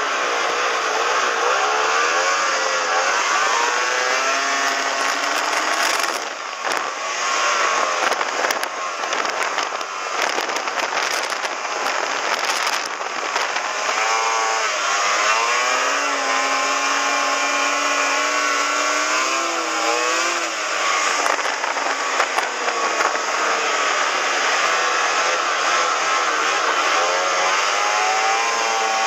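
Snowmobile engine running hard under throttle, its pitch repeatedly rising and falling as the rider accelerates and eases off. A stretch of rapid crackling noise sits over the engine from about six to thirteen seconds in.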